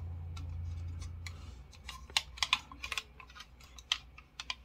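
Sharp plastic clicks and taps from a just-assembled snap-together Gengar model kit figure being handled and posed: about a dozen irregular clicks starting about two seconds in. A low steady hum fades out before them.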